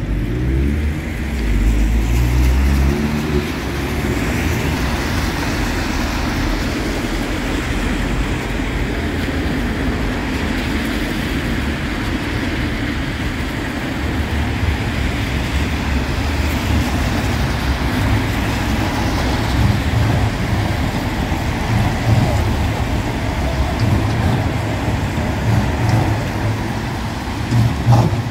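Street traffic noise at a city crossing, with street trams rolling past on their rails. A steady rush of traffic runs under a low rumble that swells in the first few seconds and again through the second half.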